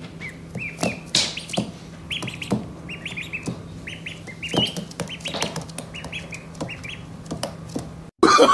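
Ducklings peeping in many short, high chirps in quick succession, with scattered light clicks. Near the end the peeping cuts off abruptly.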